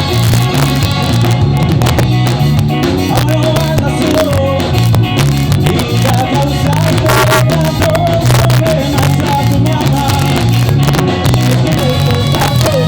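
A ska band playing live: a steady bass and drum rhythm with a melody line on top, loud, in a rough, poor-quality recording.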